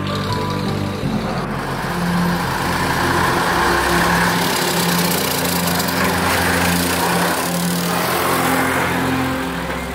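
Old green Deutz diesel tractor running as it drives past, loudest about halfway through, with background music under it.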